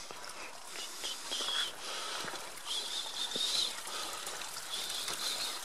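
Steady rush of a small hill stream, with footsteps on a stony path and a few short, high bird calls.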